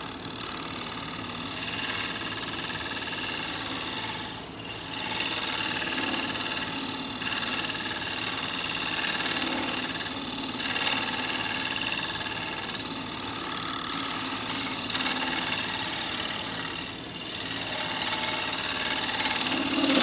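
A carbide round-nose finishing tool cutting across the inside bottom of a spinning pear bowl on a wood lathe: a steady scraping hiss over the hum of the running lathe, breaking off briefly twice. The cut is cleaning a small ledge out of the bowl's bottom.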